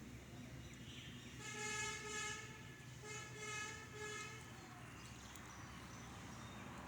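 A vehicle horn honks twice, two steady tones each about a second long, over a faint low hum.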